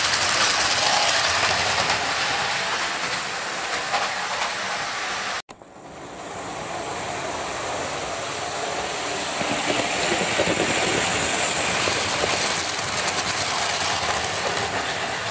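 Model trains running on a model railway: a steady whir of small motors and wheels clicking over the rail joints. The sound cuts off about five seconds in, then starts again and grows louder as a train runs along the track.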